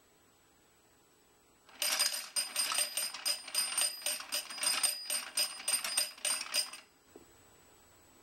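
Cast-iron Organ Bank mechanical bank being hand-cranked: a fast metallic clatter of its works with a small bell ringing steadily over it, starting about two seconds in and stopping abruptly some five seconds later.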